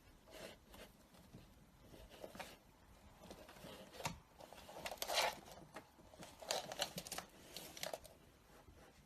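Faint, irregular rustling and crinkling noises coming in short spells, loudest about five seconds in.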